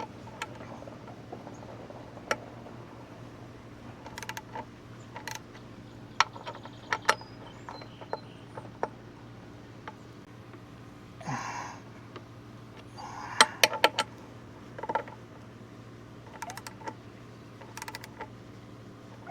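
Socket wrench working the ride plate bolts: scattered sharp metal clicks and short runs of ratchet clicks as the bolts are tightened, with occasional clinks of the tool, over a steady low hum.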